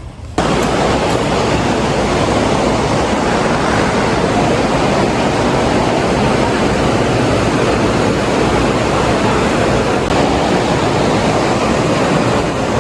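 Electric stall fan running close to the microphone: a loud, even rushing of moving air that starts abruptly about half a second in and holds steady.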